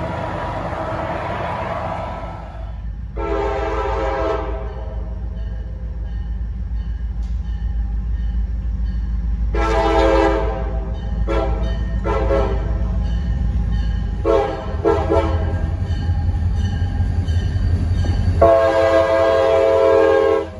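CSX freight locomotive's multi-chime air horn sounding a series of blasts as the train approaches. There are two long blasts, then several short ones, and a long blast near the end, over the low rumble of the diesel locomotives, which grows louder. In the first couple of seconds, a departing MBTA commuter train runs off into the distance.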